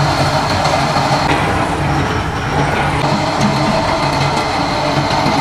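Electric chain hoist running steadily as it moves a stacked rack of fish over a tall stainless steel stock pot, a loud even mechanical whirr with a low hum underneath.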